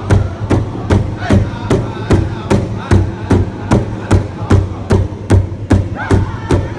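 A pow wow drum group beating a large shared drum with drumsticks in a steady, even beat of about two and a half strokes a second, with the men's high singing over it.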